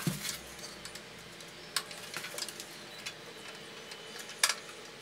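A few scattered sharp metal clicks and ticks as a T-handle Allen key tightens a handwheel onto a bandsaw, the loudest click about four and a half seconds in.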